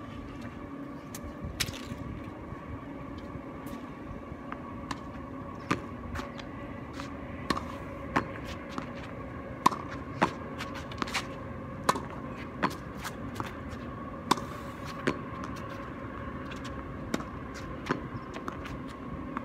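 Tennis ball rallied against a concrete practice wall: a run of sharp pops from racket strikes, wall rebounds and bounces on the concrete court, irregular, about one every half second to a second, over a steady hum.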